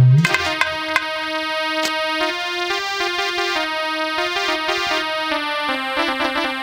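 Electronic keyboard playing an instrumental melody line between sung verses, held notes stepping up and down. There is a loud low thump right at the start.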